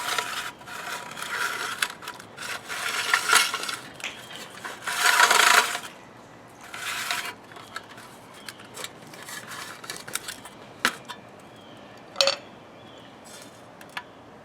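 A worn recoil-starter pull cord being drawn through the starter housing, rubbing and scraping in several long strokes over the first six seconds. It is followed by a few sharp metallic clinks of small parts, one ringing briefly.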